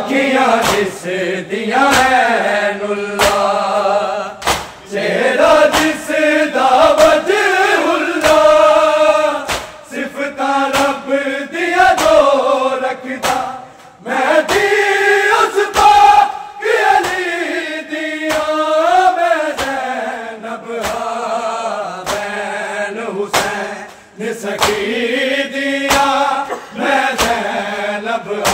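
Male noha reciters chanting a Punjabi lament together in a mournful melody, over a crowd of mourners doing matam: open-handed chest-beating in a steady rhythm of sharp slaps.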